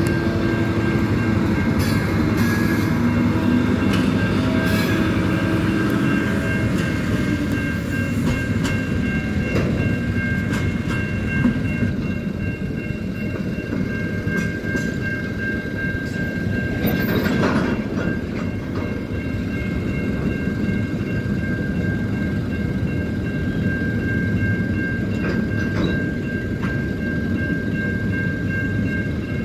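Diesel-hauled container train passing close by: the locomotive's engine is heard in the first several seconds, then the container wagons roll past with wheels clicking over the rail joints. Steady high ringing tones continue over it throughout.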